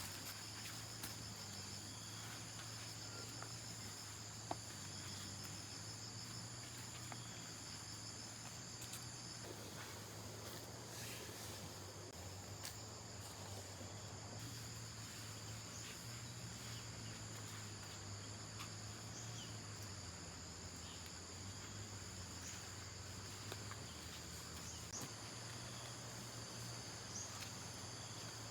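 Insects chirring in a steady, high, even drone, one of their tones stopping about a third of the way through, over a faint low steady hum and a few light ticks.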